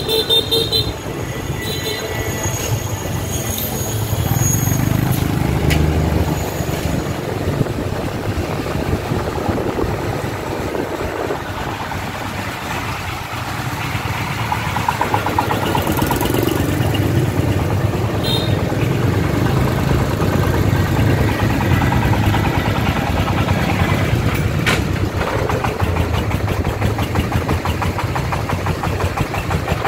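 Công nông farm truck's single-cylinder diesel engine chugging steadily as it drives, heard from close behind on a moving motorbike along with road rumble. The engine's even thumping comes through more clearly in the second half as the truck gets closer.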